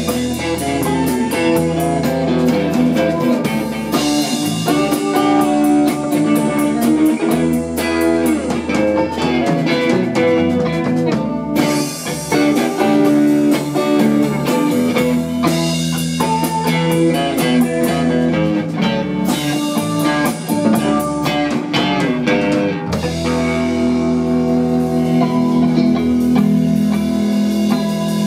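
Live rock band playing an instrumental passage on electric guitars and drum kit, with guitar notes over steady drums and cymbals. About three quarters of the way through, the playing settles into held, ringing chords.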